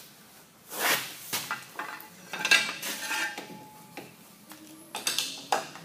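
Steel pipe cheater bar clanking and clinking against a lathe's cast-iron tool post and compound as it is shifted and lifted off: about half a dozen sharp metallic knocks, the loudest about two and a half seconds in, one followed by a short ringing tone.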